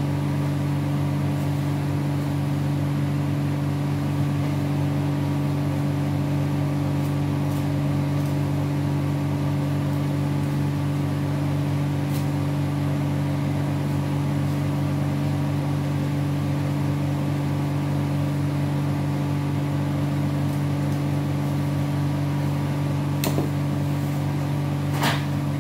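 Cold-room refrigeration unit with its evaporator fans running, a steady low hum. A couple of sharp clicks come near the end.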